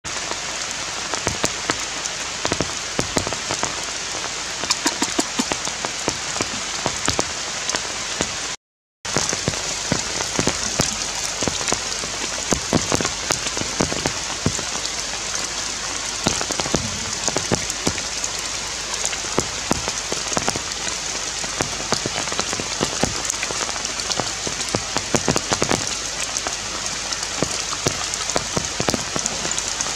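Steady rain falling: an even hiss dense with sharp drop ticks. The sound cuts out completely for about half a second a little before nine seconds in.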